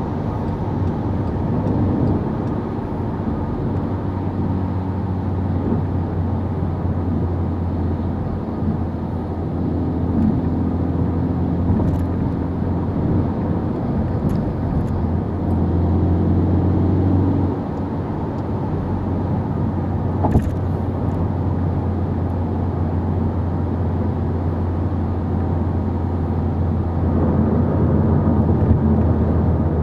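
Volkswagen Golf 6 GTI Edition 35 driving at road speed, heard from inside the cabin: a steady low hum from its 2.0-litre turbocharged four-cylinder engine under tyre and road noise. The engine note shifts pitch a few times, and there is a single sharp knock about twenty seconds in.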